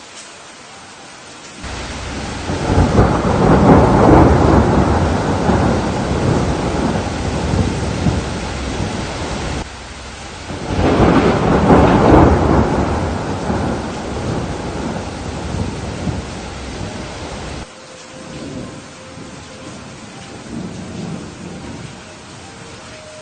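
Steady rain with two long rolls of thunder, the first starting about a second and a half in and the second about ten seconds in, each rumbling for several seconds and then cutting off abruptly before the rain carries on more quietly.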